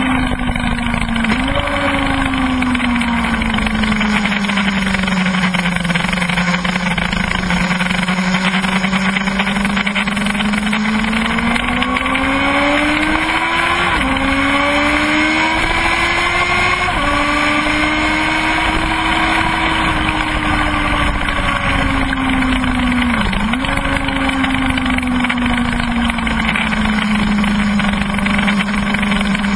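Kawasaki ZX-12R's inline-four engine at speed, heard from on the bike, its pitch sliding up and down through the corners with a few sudden jumps at gear changes, over a constant rush of wind.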